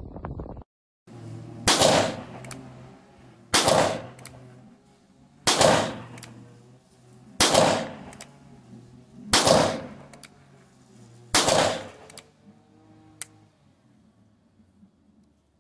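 Colt open-top revolver firing six .38 Special rounds, one shot about every two seconds, each shot followed by a fading echo.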